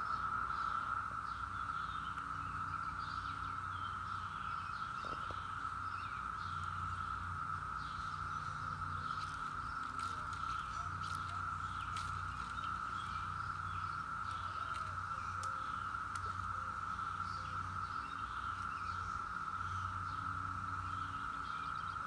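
A dense chorus of Brood X periodical cicadas: a steady, unbroken high drone. Faint bird chirps sound above it and a low hum runs beneath it.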